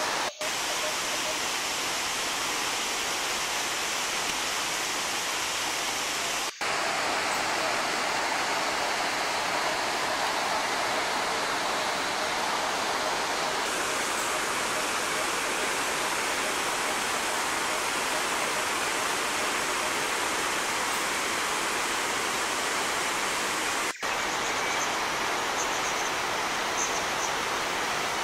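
Iguazu Falls: a steady rush of heavy falling and flowing water, broken by three very short dropouts.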